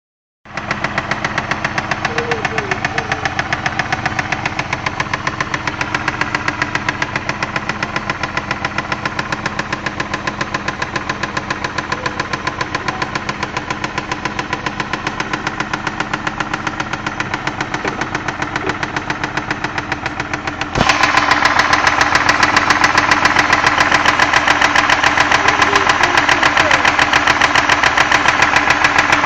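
2001 Ford Escape's 3.0L V6 engine running at a steady speed with a fast, regular knock, which the owner takes for an engine knock. The sound steps up suddenly louder about two-thirds of the way through.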